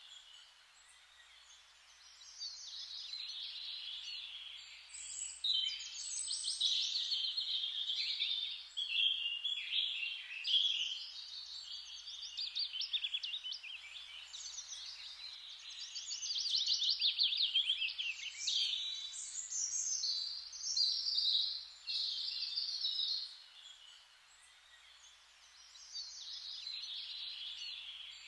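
Songbirds singing: high phrases of rapid trills and warbles following one another almost without pause. The song is quieter near the start and again about three-quarters through.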